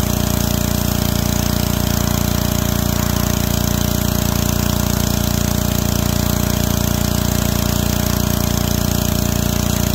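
Gas-engine pressure washer running steadily at about 3000 PSI: a constant engine hum under the hiss of the water jet from a 25-degree nozzle striking the motorhome's front panel.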